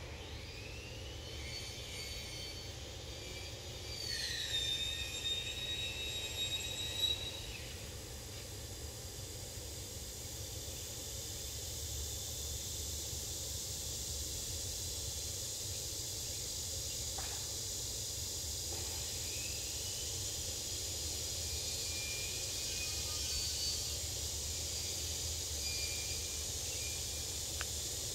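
Outdoor background noise: a steady low rumble under an even high hiss. About four seconds in, a brief whistle-like tone slides down and holds for a few seconds.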